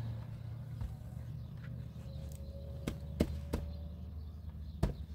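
Several sharp knocks over a low steady hum: three in quick succession a little past halfway, and two more near the end.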